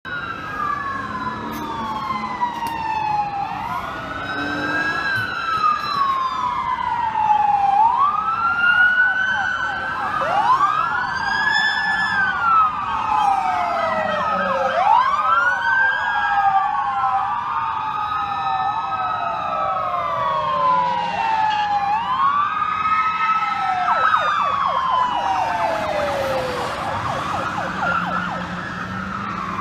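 Several police car sirens wailing at once, their rising and falling wails overlapping, each sweep lasting a few seconds.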